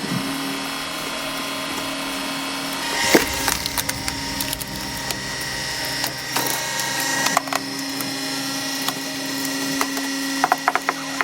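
A dual-action log splitter runs with a steady machine hum while wood cracks and splinters as logs are split. There is one loud crack about three seconds in and a quick run of sharp cracks near the end.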